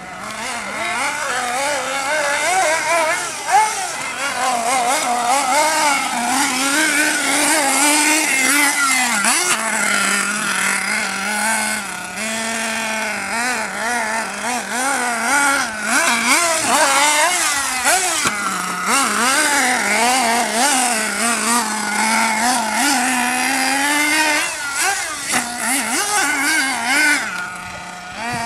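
Hobao Hyper 8.5 nitro RC buggy's small glow-fuel engine running under constant throttle changes, its high buzz rising and falling in quick revs. It holds a steadier lower note for about a second near the end.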